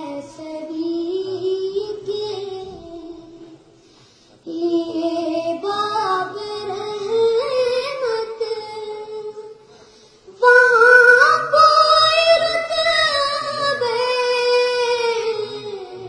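A young boy singing a naat, unaccompanied, into a microphone: long drawn-out phrases with a wavering, ornamented melody. He pauses briefly twice for breath, and the last phrase is louder and higher than the first two.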